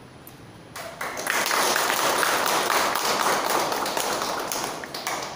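A small group of people clapping. The clapping starts about a second in and tails off near the end.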